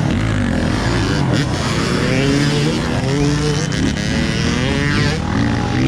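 A motor vehicle engine revving up and down over and over, with a sharp rise in revs about four seconds in.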